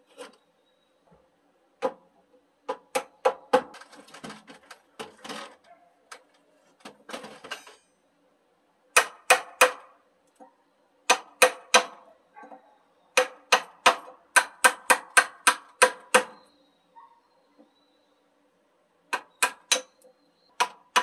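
A large wide timber chisel being struck repeatedly, driving it into a log beam to cut a joint: sharp knocks in bursts of several blows, up to about four a second in the longest burst, with a short ring on each blow. Between bursts there are stretches of the chisel scraping and paring the wood.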